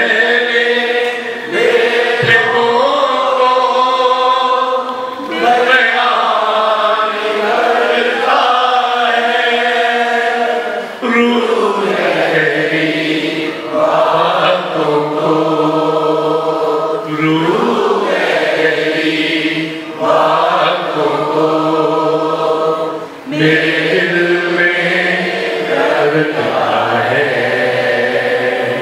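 A man singing a slow devotional chant into a microphone, holding long notes; about twelve seconds in the melody moves lower.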